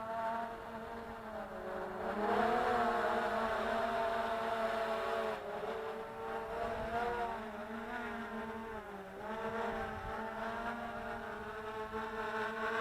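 Hubsan X4 H109S Pro quadcopter's electric motors and propellers running with a steady whine. The pitch wavers, dipping and recovering a few times as the motor speeds change.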